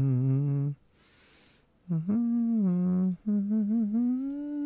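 A man humming a slow tune: long held low notes, with a pause and an audible breath about a second in before the humming resumes.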